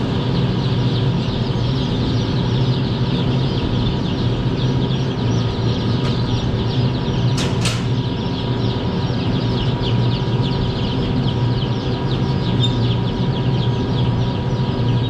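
A dense, continuous chorus of peeping from many week-old pullet chicks in cages, over a steady low machine hum. There is a short, sharp rustle or knock about seven and a half seconds in.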